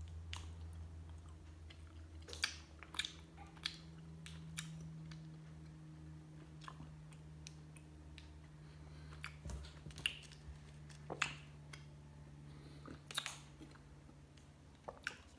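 Mouth chewing a soft, chewy filled Twizzlers candy twist: quiet, irregular wet clicks and smacks over a faint steady low hum.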